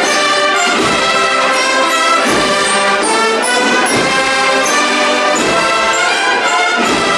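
Brass band playing a slow Holy Week processional march, with full held brass chords.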